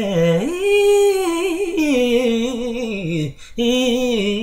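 A man singing unaccompanied, drawing out one long sung note with vibrato that rises, holds and falls away. He takes a short break about three seconds in, then starts another wavering held note.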